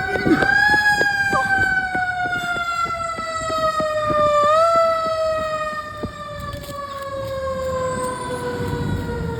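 Fire truck siren wailing: the pitch rises briefly, falls slowly for several seconds, then rises and falls slowly again about four and a half seconds in, over a low engine and traffic rumble.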